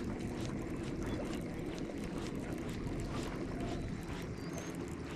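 Boat motor running steadily while the boat is under way, a constant low drone.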